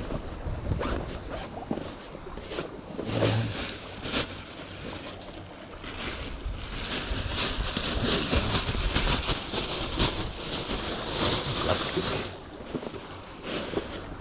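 A backpack being unzipped and handled, with short clicks and scrapes, then a thin plastic carrier bag rustling and crinkling steadily for about six seconds from around the middle as a fish is put into it.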